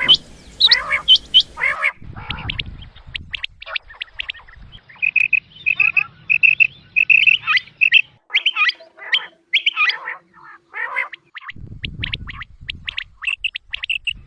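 Quail calling: runs of short, high, sharp calls repeated quickly, some sliding downward, with two stretches of low rustling noise.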